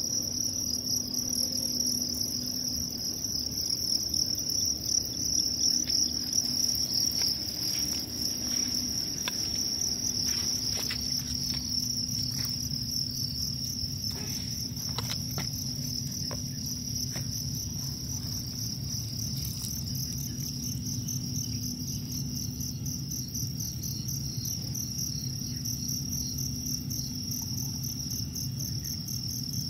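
Crickets in the breeding pens chirping steadily in a continuous high-pitched chorus, with a few light clicks partway through.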